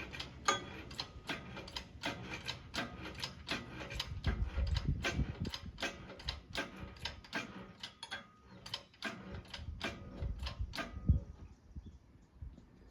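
Hand ratchet clicking steadily, about three clicks a second, as a bolt is worked, ending with one loud metallic knock about 11 seconds in.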